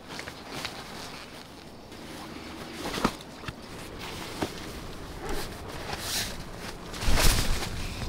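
Nylon tent fabric and a black stuff sack rustling as they are handled, with a few light knocks and clicks, and a louder rustle with a low rumble about seven seconds in.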